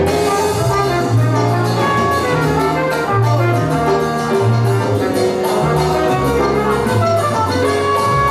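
Salsa music playing loud and continuous, with a brass horn section holding notes over percussion and a repeating bass line.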